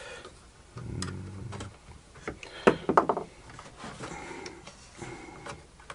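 Hand tools and small metal parts handled on a workbench: pliers set down and a screwdriver worked at the nuts and washers, giving a few sharp clicks and taps, the loudest about halfway through.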